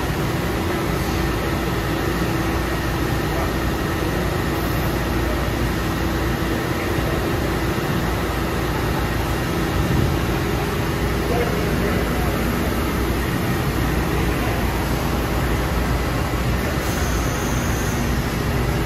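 2003 ANCA PGX CNC tool grinder running under power, coolant spraying inside its closed enclosure: a steady hiss of spray over a machine hum with a few faint steady tones.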